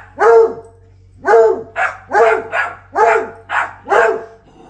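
A dog barking repeatedly in short, evenly spaced barks, about two a second, with a brief pause near the start.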